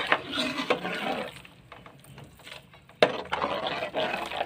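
Steel spoon stirring and sloshing hot milk in a metal pot, in two spells with a quieter pause between; the second spell starts with a sharp knock.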